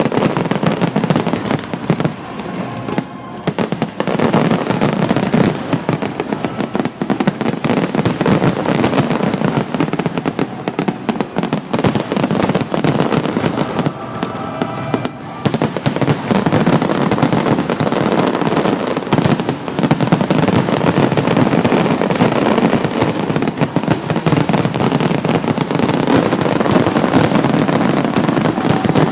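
Fireworks display: a dense, continuous run of bangs and crackling from aerial shells, easing briefly a few seconds in and again about halfway through.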